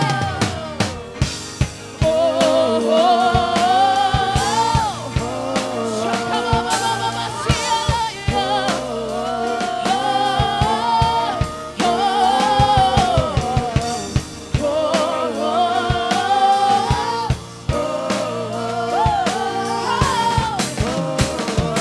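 Live worship band music: a drum kit keeps a steady beat under a singer's voice carrying a sustained, gliding melody.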